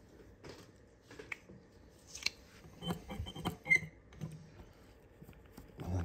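Faint scattered clicks and rustles of gloved hands handling a small metal bracket, tools and a wipe on a work mat, with a few sharper ticks in the middle.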